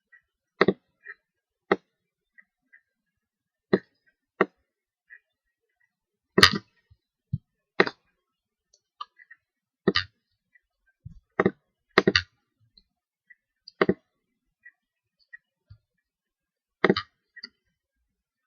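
Computer mouse clicking, about a dozen sharp clicks at irregular intervals, some in quick double clicks, with fainter small clicks between them.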